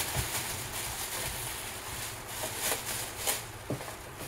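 Thin plastic wrapping bag rustling and crinkling as a blender's motor base is pulled out of it, with a few sharper crinkles in the second half, over a steady low hum.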